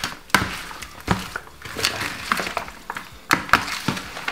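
A metal spoon turning pieces of fish in marinade in a plastic bowl: irregular knocks and clicks of the spoon against the bowl and the fish.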